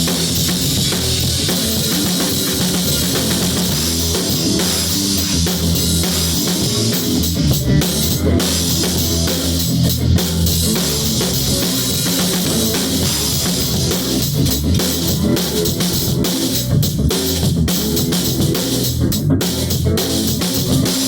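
Rock music with a drum kit, bass drum and guitar playing steadily.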